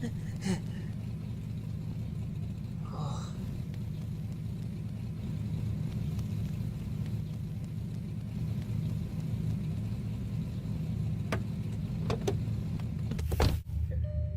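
Car engine idling with a steady low rumble, and a few sharp clicks near the end.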